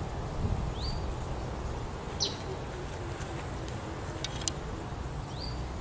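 Outdoor ambience: a bird gives a few short, high chirps, some sliding up and some sliding down, spaced a second or more apart. Under them runs a faint steady high insect tone and a constant low rumble.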